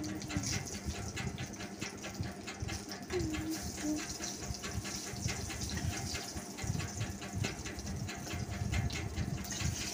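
Food sizzling and crackling in hot oil in a frying pan, a steady dense crackle.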